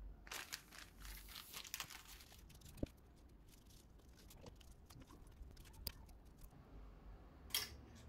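Plastic packaging crinkling and a thin cushion sheet rustling as they are handled, for the first two and a half seconds. After that come scattered faint clicks, a sharp tap about three seconds in, and another sharp click near the end.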